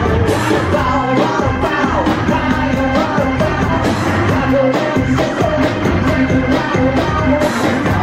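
Live band music: sustained keyboard tones under a steady clicking beat, with a man singing lead and a woman's voice joining in.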